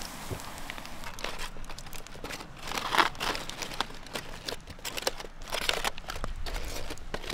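Aluminium foil packet being pulled open by hand, crinkling and rustling in irregular bursts, loudest about three seconds in.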